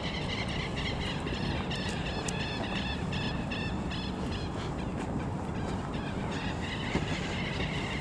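Outdoor ambience: birds chirping and chattering rapidly over a steady low rumble.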